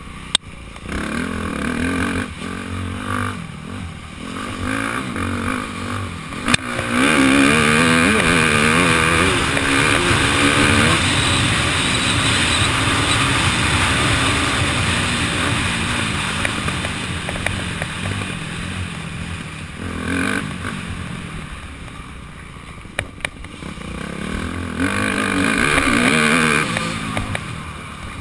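Dirt bike engine racing along a trail, revving up and down as the throttle opens and closes through the gears. It is loudest for a few seconds in the first half and again near the end, with a couple of sharp knocks along the way.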